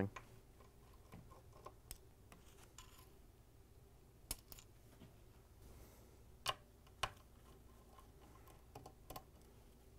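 A few light, sparse clicks over near silence: a Phillips screwdriver turning out the screws that hold a KitchenAid stand mixer's motor to its lower housing. The clearest clicks come about four, six and a half and seven seconds in, with a couple more near the end.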